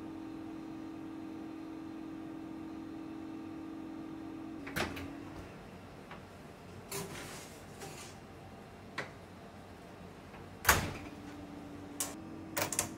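Commercial convection oven's fan running with a steady hum, cutting out about five seconds in as the door is opened with a click. A few light knocks follow, then the door shuts with a loud clunk, the fan starts up again, and the lever latch clicks a couple of times near the end.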